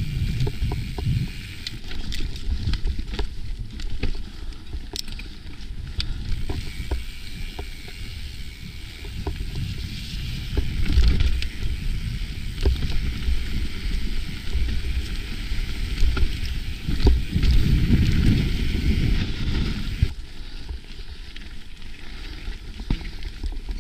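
Mountain bike rolling down a dirt singletrack: tyre and trail rumble with wind buffeting the microphone, broken by frequent sharp knocks from the camera gimbal.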